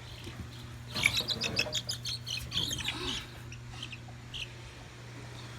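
Chickens in a coop give a quick flurry of high, short chirps and peeps for about two seconds, then a few scattered chirps. A steady low hum runs underneath.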